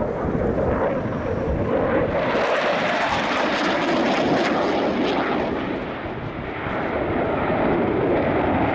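Dassault Rafale C's twin Snecma M88 turbofan jet engines, loud and steady from a fighter manoeuvring overhead. The sound swells with a harsh crackle from about two to five seconds in, eases around six seconds, then builds again.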